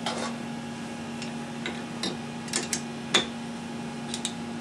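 Litton automated glass lathe: scattered light clicks and ticks over a steady low hum. The loudest click comes a little past three seconds in, and two faint clicks near the end come as the freshly bent quartz tube is handled.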